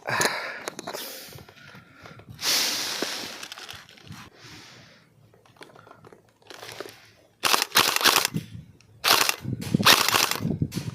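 Airsoft guns firing in short rapid bursts of sharp cracks, clustered in the second half. Earlier there is a brief loud rustling rush.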